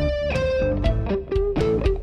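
Firebird electric guitar playing a single-note lead line: a held note that bends slightly, then a run of quickly picked notes.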